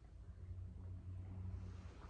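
Quiet room tone: a low, steady hum with no distinct sound.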